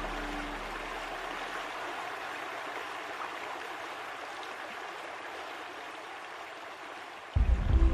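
Steady hiss of running water, slowly fading. Held music notes die away just after the start, and music comes back loudly near the end.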